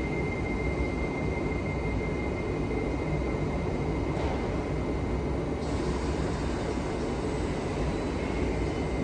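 London Overground Class 378 electric train at the platform, giving a steady low rumble and hum with a thin high whine. About six seconds in, further high whining tones set in, the sound of its traction equipment as it gets ready to pull away.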